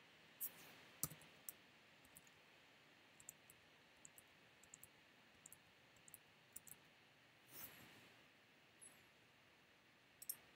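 Faint, irregular clicks of a computer keyboard and mouse as numbers are typed into a data table, about fifteen over ten seconds, a few of them louder.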